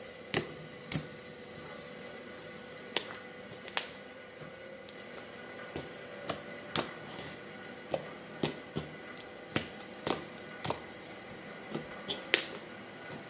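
Glossy fluffy slime being handled, making irregular small clicks and pops.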